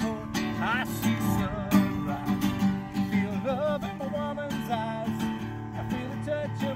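Acoustic guitar strummed steadily through an instrumental break in a country song, with a wordless, wavering melody line above the chords.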